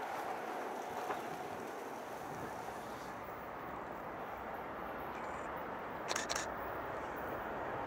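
Running noise of an SBB Re 460 electric locomotive and its double-deck coaches fading as the train moves away. After a cut comes a steady rumble from a distant train approaching, slowly growing, with a short double click about six seconds in.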